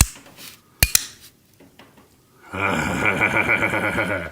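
Sharp clicks of heavy-duty switches being pressed into their mounting holes, one at the start and a double click just under a second in. About two and a half seconds in comes a loud buzz with a fluttering pulse, lasting nearly two seconds.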